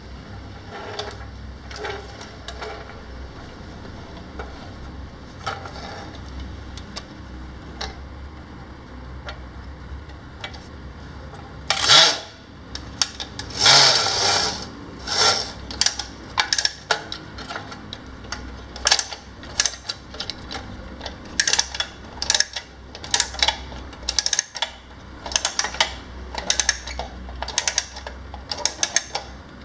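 Tin wind-up toy street sweeper being wound by its side crank: clicks from the winding mechanism, sparse and faint at first, then louder at roughly one to two a second from about halfway through, with a couple of longer scraping sounds where the loud clicking begins.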